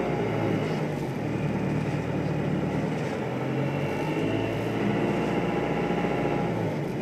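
A steady, low mechanical drone, like heavy machinery or an engine running, continuous with no breaks.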